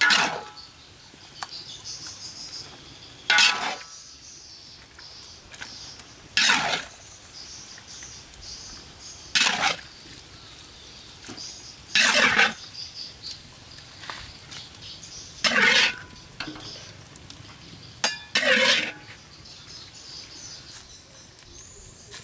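A long metal spatula scraping hard against the inside of a large steel wok as stir-fried egg and cabbage is scooped out, one harsh half-second scrape about every three seconds, with two quick ones near the end.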